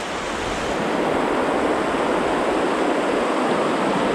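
River rapids rushing over rocks, a steady, even rush of white water.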